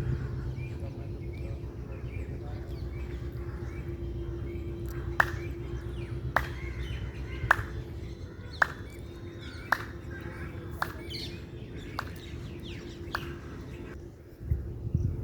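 Birds chirping over a steady low hum. In the middle comes a run of eight sharp ticks, about one a second.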